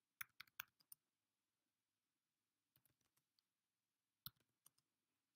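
Computer keyboard keys clicking faintly as text is typed: a quick run of about half a dozen keystrokes in the first second, a pause, then a few more keystrokes just past four seconds in.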